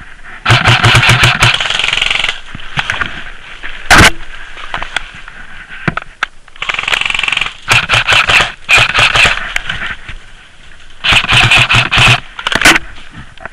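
Airsoft rifles firing full-auto in several bursts of rapid shots, each lasting about a second, with one sharp, loud crack about four seconds in.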